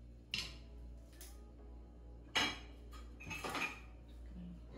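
Metal kitchen utensils clinking and knocking against dishes and cookware: a couple of light clinks in the first second, the loudest clink about two and a half seconds in, then a short clatter about a second later.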